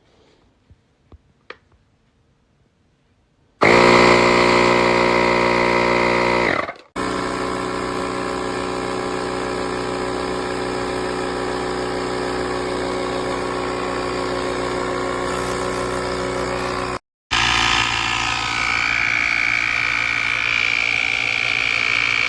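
The portable jump starter's built-in air compressor running steadily after a few faint clicks. It starts suddenly, cuts out briefly twice, and a steady high whine joins in near the end.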